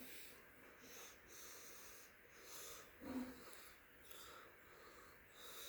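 Near silence: faint room hiss, with one short, soft sound about three seconds in.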